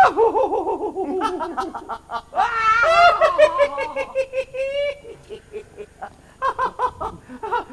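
Two pantomime dames laughing mockingly in high, exaggerated voices. Rapid cackling comes first, then a long shrieking laugh that rises and falls, then a few more short bursts near the end.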